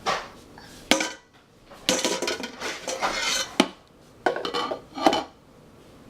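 Pots, a lid and a metal spoon clattering and clanking in several separate bursts with a slight metallic ring, as the pans are handled and stirred.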